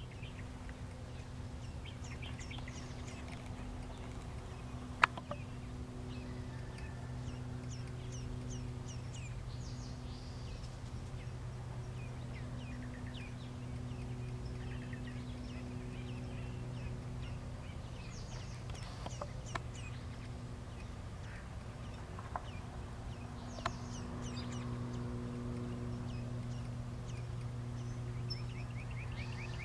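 Small birds give scattered short, high chirps and calls, with a quick run of repeated chirps near the end. Under them runs a steady low mechanical hum. A sharp tap about five seconds in is the loudest sound, and a fainter one comes near the end.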